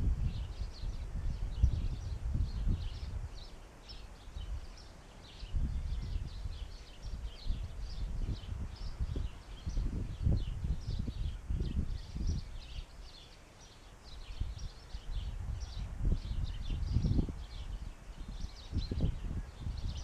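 Wind buffeting the camera's microphone in gusts, with small birds chirping again and again in the background.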